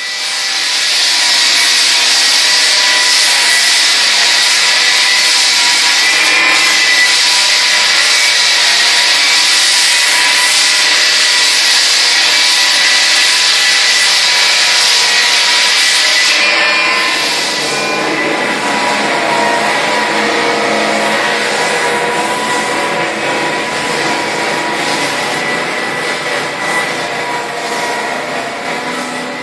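Drum floor sander running steadily as it grinds down a worn veneer parquet floor: a loud hiss of abrasive on wood over a steady motor whine. About two-thirds of the way through, the sound shifts and drops slightly in level.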